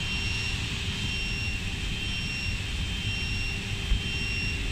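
Steady running hum of a roller-conveyor production line, with an electronic warning beep sounding for about half a second roughly once a second. A single low thump about four seconds in.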